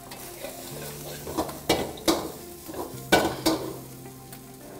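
Metal ladle stirring and mixing biryani rice in an iron kadai, scraping along the pan and knocking against it with four sharp clanks around the middle.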